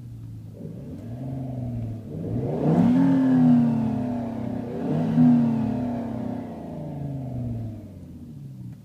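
Renault Clio 200 Turbo engine revving twice, with the note climbing quickly about two and a half seconds in and again about five seconds in, each time sinking slowly back down. It is heard through the car's R-Sound Effect, which plays an enhanced engine sound through the cabin speakers.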